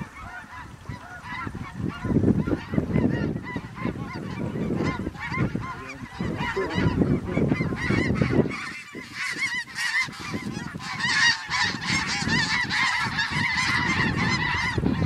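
A flock of snow geese calling: many short overlapping calls, growing denser and louder about two-thirds of the way through. Gusty wind rumbles on the microphone underneath.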